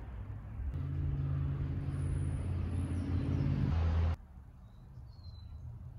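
A motor running nearby, a low steady hum that cuts off abruptly about four seconds in, leaving faint outdoor background noise.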